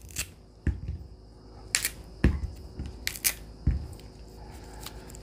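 Baby bananas set down one by one on a wooden cutting board: several separate soft knocks and light clicks, two of them dull thuds.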